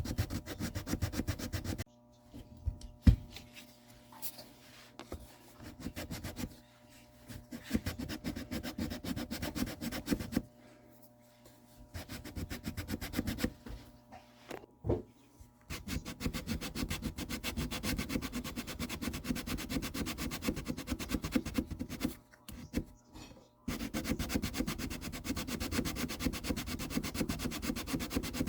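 Abrasive rubbing on guitar wood, hand sanding in fast, even strokes. It comes in long bouts with short pauses about two, ten and twenty-two seconds in.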